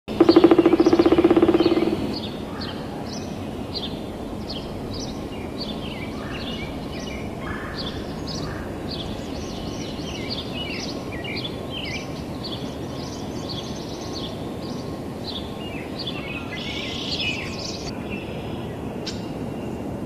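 Pileated woodpecker drumming on a hollow dead tree: a loud, rapid, resonant drum roll lasting nearly two seconds at the start. After that, small birds chirp repeatedly over a steady low background noise.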